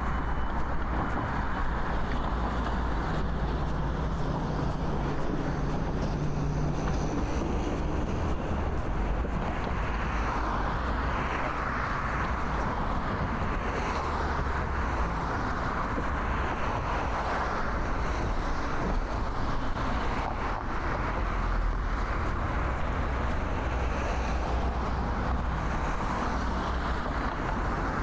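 Steady city street traffic: cars running past on the road, with a low engine hum standing out for a few seconds near the start.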